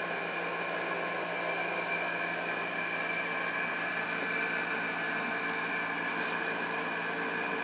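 Steady mechanical hum with several held tones, from a running appliance, with two faint brief ticks a little past the middle.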